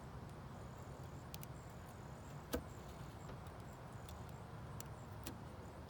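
Faint, steady low rumble of background noise, with one sharp click about two and a half seconds in and a few fainter ticks.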